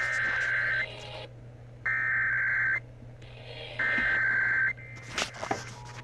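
Three bursts of Emergency Alert System header data, each just under a second long with about a second between them, played through a radio's speaker: the digital code that opens an EAS alert or test. A few clicks and knocks follow near the end.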